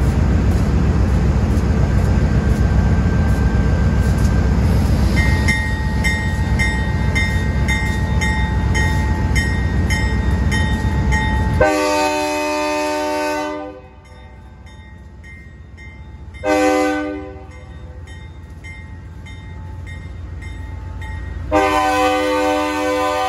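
Union Pacific diesel locomotive's multi-chime air horn sounding as it leads a freight train over a crossing: one long blast about halfway in, a short blast a few seconds later, and another long blast starting near the end, the tail of the crossing warning signal. Before the horn there is a heavy low rumble.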